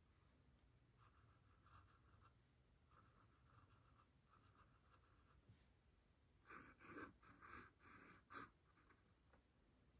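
Fountain pen nib scratching across sketchbook paper in short drawing strokes. It is faint at first, then louder in a quick run of strokes past the middle.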